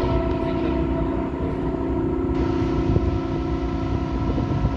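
Steady machinery hum from the ship, several even tones held without change, over a low, uneven rumble of wind on the microphone.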